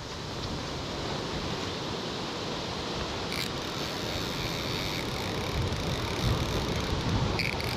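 Wind blowing on the microphone, getting stronger toward the end, with a couple of short faint clicks.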